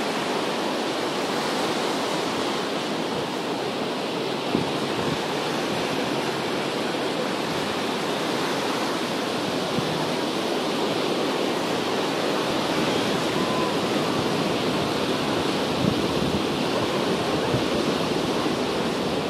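Ocean surf breaking and washing on the beach, heard as a steady, even rushing.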